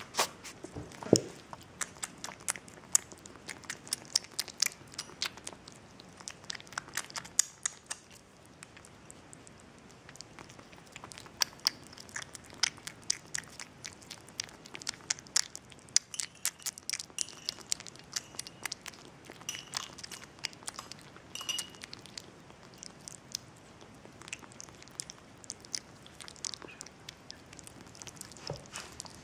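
Six-week-old kitten eating wet kitten food from a saucer: rapid small wet chewing and smacking clicks that come in irregular bursts, with short pauses between them.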